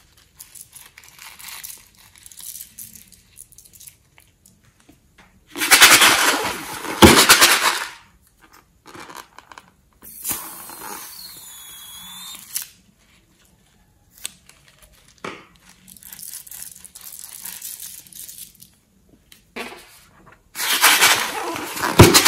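Rubber balloons being handled, squeezed and cut over a bowl of slime: crackly, squishy noise in bursts, with two loud stretches, one about six seconds in and one near the end. Around ten seconds in there is a hissing stretch with a wavering high whistle.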